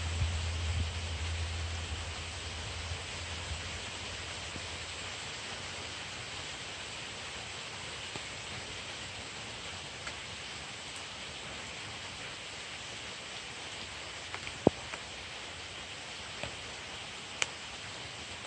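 Heavy rain falling steadily in a storm, a continuous hiss, with a low rumble of wind in the first couple of seconds. A few sharp ticks stand out in the second half.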